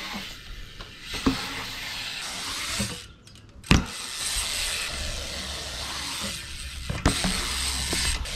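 BMX bike rolling on the concrete of a skatepark bowl: tyres on concrete, with the freewheel hub ticking as the bike coasts. There is a sharp knock about a second in, and a louder one just before four seconds, right after a brief hush.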